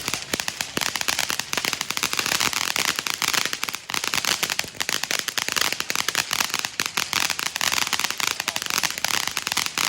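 Spirit of Freedom fountain firework from Freedom Fireworks burning: a steady hissing spray filled with dense, rapid crackling.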